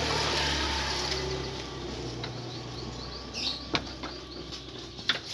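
Sheep eating wet comboran mash from a wooden trough, with scattered sharp clicks and knocks from muzzles in the feed and against the wood. A bird chirps briefly about three and a half seconds in.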